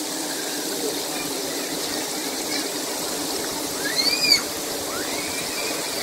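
Lake water running steadily as it overflows and spills down, with a few short high chirps about four seconds in.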